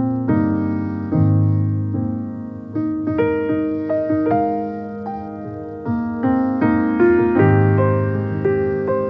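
Background piano music: a slow melody of single notes and chords, each struck and left to ring and fade.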